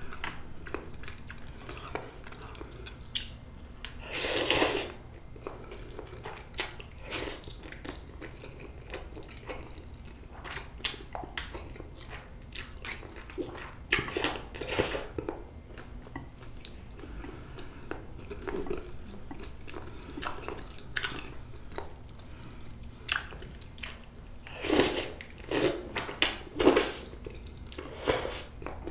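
Close-up eating sounds of Japagetti black-bean-sauce instant noodles: noodles slurped off chopsticks in several loud slurps, with chewing in between. There is a loud slurp about four seconds in, more around the middle, and a cluster near the end.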